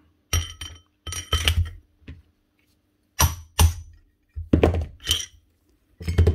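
Sharp metal-on-metal knocks with a short ring, about ten of them in pairs roughly half a second apart, as the broken remains of the striker pin are knocked out of the tool holder of a Bosch GBH 5-40 DCE rotary hammer.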